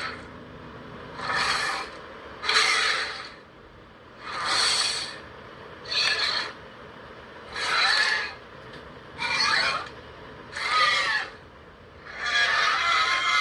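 A run of monster roar sound effects for a giant reptilian kaiju: seven short, harsh calls about a second apart, then a longer one near the end.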